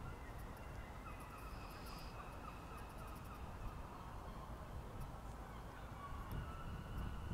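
Faint outdoor ambience: birds calling over a steady low rumble.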